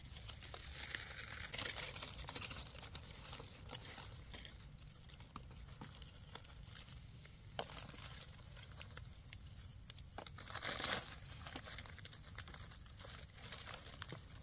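Faint rustling and crackling of dry leaf litter on the forest floor, with scattered small snaps of twigs and two louder rustles, about a second and a half in and near eleven seconds in, as mushroom pickers move and search through it.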